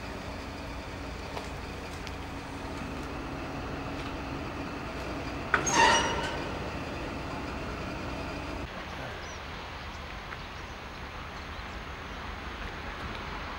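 Diesel locomotive of the ACTS 7100 series running with a steady engine hum. A short, loud, high-pitched note sounds about six seconds in. About nine seconds in, the engine sound gives way to a quieter steady background.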